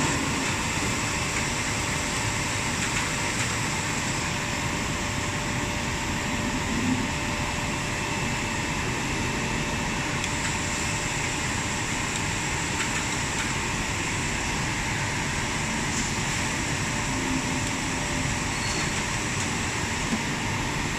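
Automatic insulating-glass edge-sealing machine running, a steady mechanical hum and hiss with a faint constant tone beneath.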